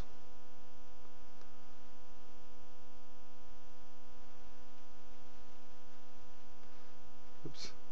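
Steady electrical mains hum, a constant buzz with many even overtones, running under the recording with no other sound.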